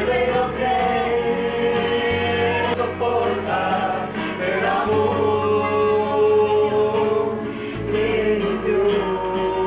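Background music with singing voices over held bass notes that change every few seconds.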